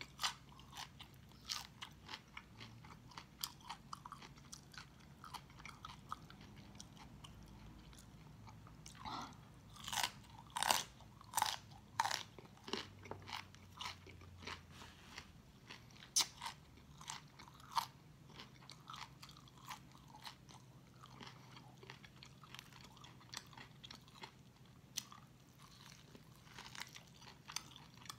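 Close-miked crunchy chewing and biting of cauliflower florets: a run of sharp crisp crunches, coming thickest and loudest about a third of the way in, then tapering to softer chewing.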